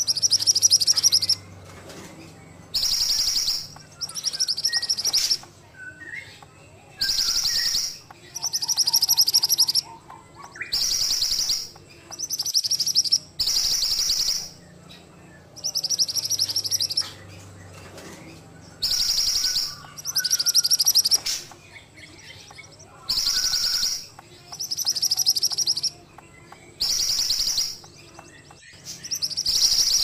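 Mantenan songbird singing a rapid, high trill about a second long, repeated over and over roughly every two seconds, with softer, lower chirps in the gaps between trills.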